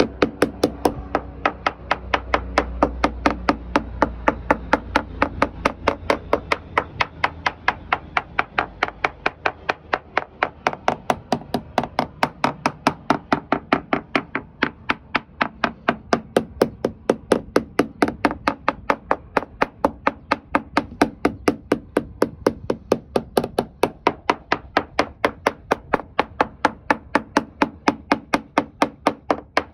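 Ball-peen hammer tapping steadily on the fiberglass surface of a Donzi boat, about three to four light taps a second in an even rhythm.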